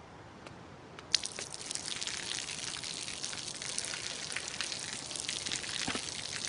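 A thin stream of water falling from an overhead pipe and splashing onto the pavement, a steady patter of drips and spatter. A sharp splash about a second in, after which the splashing thickens.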